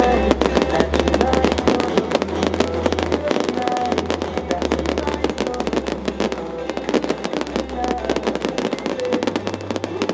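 Fireworks crackling: a dense, rapid stream of small sharp pops and cracks.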